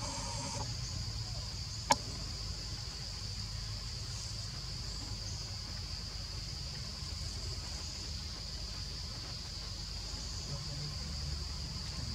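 Steady, high-pitched drone of an insect chorus, with a low rumble underneath and a single sharp click about two seconds in.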